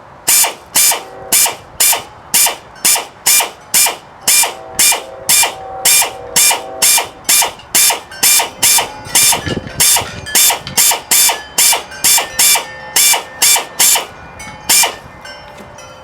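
Ratchet wrench worked back and forth, a short loud burst of clicks on each swing, about two swings a second, pausing briefly midway and stopping near the end.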